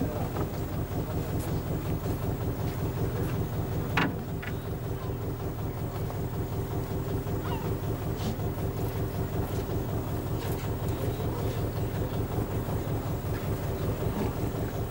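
A boat's engine running steadily with an even low pulse and a held hum, and one sharp click about four seconds in.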